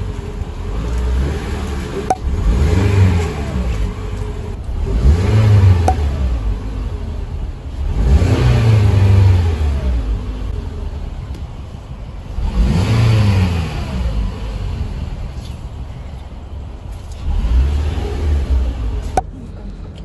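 Car engine being revved while parked, heard from inside the cabin: about five times the engine speed climbs and falls back to idle, with the engine idling steadily in between.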